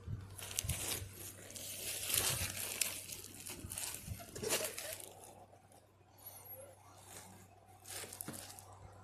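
Packaging being crinkled and torn in irregular bursts, busiest in the first half, over a faint low electrical hum.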